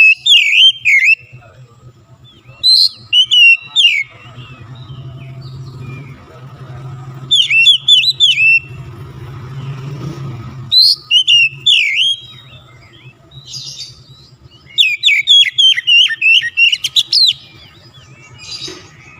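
Oriental magpie-robin (kacer) singing loud, rapid whistled and chirping phrases in about five bursts of one to two seconds, with pauses between. A faint low hum runs underneath.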